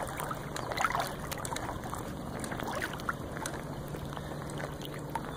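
River water splashing and lapping with small scattered ticks, over a faint steady low hum.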